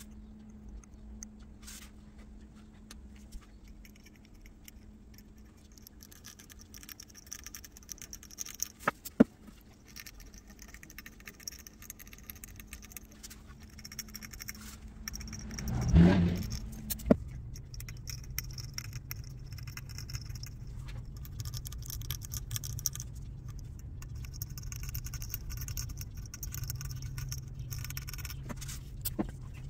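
Steady mechanical hum that gives way to a lower hum after a loud rush lasting about a second near the middle, with scattered metallic clinks and scraping.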